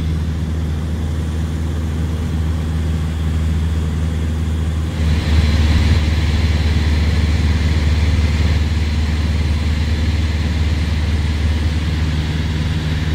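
Steady drone of a light aircraft's engine and propeller heard from inside the cabin in flight, a deep even hum with rushing air over it. About five seconds in it grows louder, with more hiss, and holds there.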